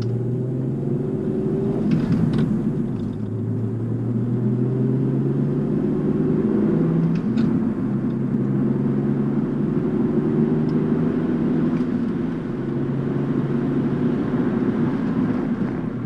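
Audi B5 S4's 2.7-litre twin-turbo V6 being driven gently on the road to bring the engine and oil up to temperature, its engine note shifting in pitch a few times over steady road noise.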